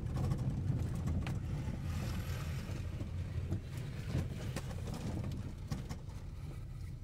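Moving car heard from on board: a steady low rumble of engine and tyres on the road, with a few light clicks and knocks.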